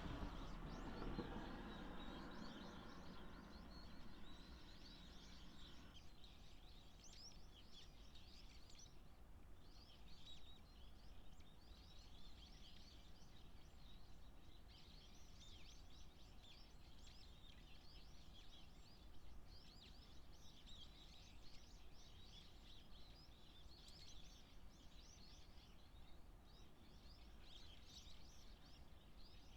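A flock of waxwings calling: many high, thin calls overlapping almost without a break, with a short pause about nine seconds in, over a faint low background rumble.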